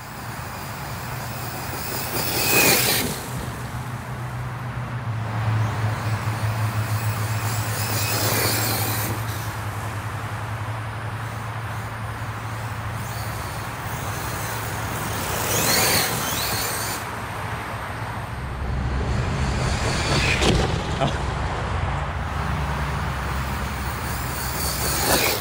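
Radio-controlled electric cars driving past about five times. Each pass is a brief rush of electric motor whine and tyre noise that swells and fades over a steady low drone.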